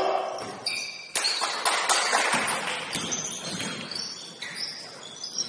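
A basketball thumping on a gym floor several times at irregular intervals during play, with short high squeaks of sneakers on the court.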